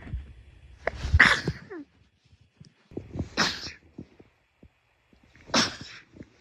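Three sneezes, about two seconds apart, the first the loudest.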